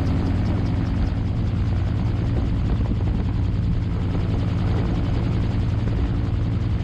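Magni M16 gyroplane's engine and pusher propeller running steadily, heard from the open cockpit with wind rushing past, during a descending approach to land.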